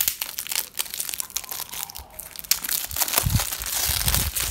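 Clear cellophane wrap being peeled and torn off a makeup palette box, crinkling and crackling continuously, with some low thumps in the second half.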